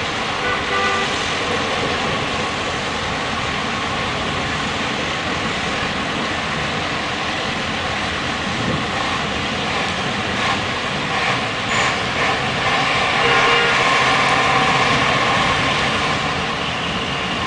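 Steady outdoor hiss of rain and traffic over a flooded city street, with vehicle engines running. About thirteen seconds in, a louder pitched engine sound rises out of it for a few seconds.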